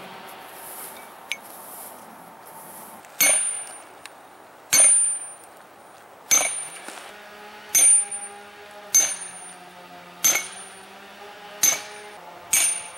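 A sledgehammer strikes a steel fence-post sleeve eight times, about one blow every second and a half, driving the sleeve into hard, rocky ground. Each blow gives a sharp clang with a short metallic ring.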